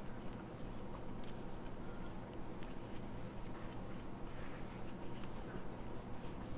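Faint, scattered clicks and rustles of a crochet hook catching and drawing yarn through stitches, over a steady low hum.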